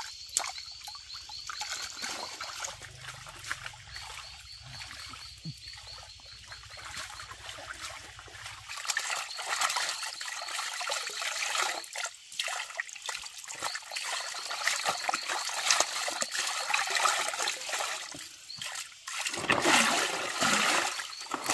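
Water trickling from a bamboo pipe into a plastic basin. From about nine seconds in, baby clothes are rubbed and swished by hand in the water, with splashing that grows louder near the end.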